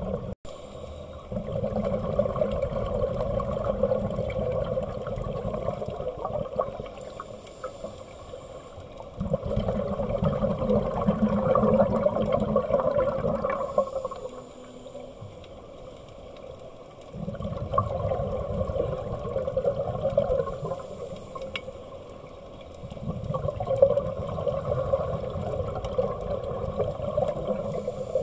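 Scuba divers' exhaled breath bubbling out of regulators, heard underwater: rolling bubbling in four long spells of about four to five seconds each, with quieter gaps between.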